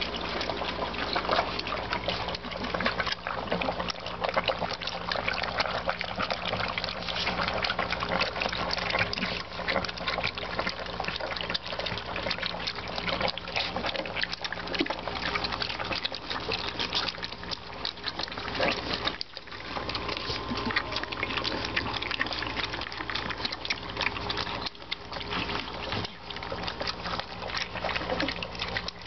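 A litter of Weimaraner puppies lapping and slurping milk from a shallow tray: many tongues at once making a dense, continuous wet clicking and splashing. It is noisy.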